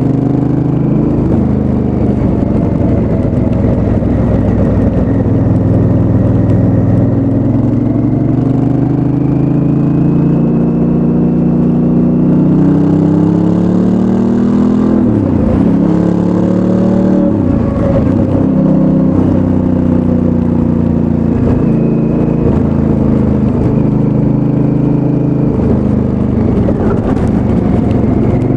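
2019 Honda Africa Twin's 998 cc parallel-twin engine through its stock exhaust, heard from the bike while riding. The engine note rises and falls repeatedly, with a couple of sharp drops and recoveries in revs about halfway through.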